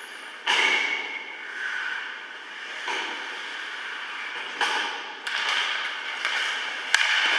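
Ice hockey play echoing in an indoor rink: about five sharp cracks of sticks and puck, the loudest about half a second in and near the end, over the rink's steady background noise.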